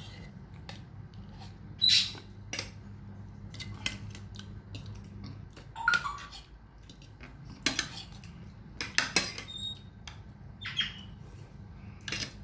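Eating at a table: scattered clinks and taps of a plate and utensils, the loudest about two seconds in and others near six, eight, nine and eleven seconds, over a low steady hum.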